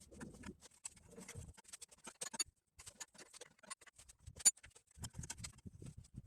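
Scattered small clicks and rattles of metal parts and tools being handled, with one sharper click about four and a half seconds in.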